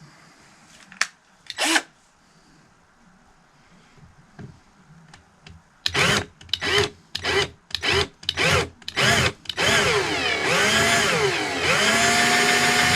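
Electric drill with a step bit boring a hole in a turbo intake part: after two faint clicks, the trigger is pulsed in short bursts about six seconds in, then the drill runs continuously with its motor speed rising and falling before settling into a steady whine. It is being run super slow.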